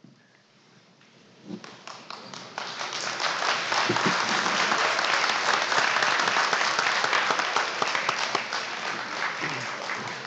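Audience applauding: a few scattered claps about a second and a half in, quickly building to full, steady applause that begins to fade near the end.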